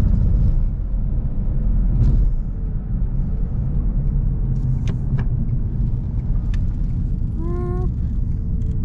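2001 Lexus IS300 on the move, heard from inside the cabin: a steady low rumble of road and drivetrain noise. A short wavering tone sounds about seven and a half seconds in.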